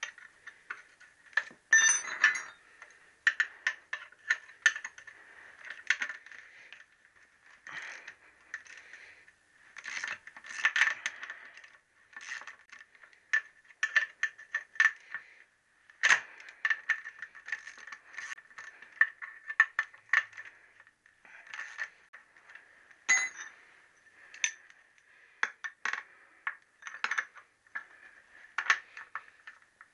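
Hand tools and small steel parts clicking and clinking against a Triumph T120R's engine and gearbox cases while screws and the engine mount are undone: a long run of sharp, irregularly spaced metallic clicks and short rattles.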